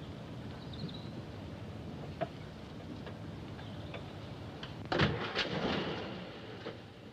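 A car door is shut with a sudden heavy clunk and a short rattle about five seconds in, after a lighter click, over a steady low rumble.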